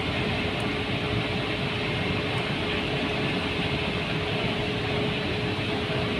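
Steady industrial machinery noise with a constant mid-pitched hum, the running plant of a palm oil mill.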